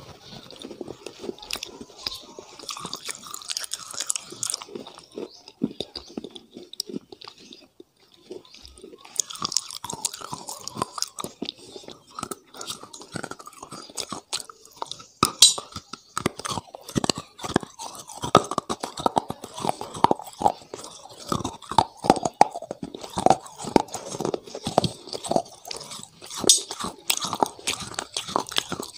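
A person biting and chewing crunchy food close to a clip-on microphone: many sharp crunches. They thin out for a few seconds and come thick and loud again from about nine seconds in.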